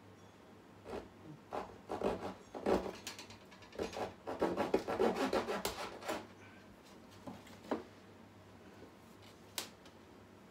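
Thin wooden strips rubbed and scraped against the wooden model hull and workbench in a run of irregular short strokes, quickest about halfway through, followed by a few light taps.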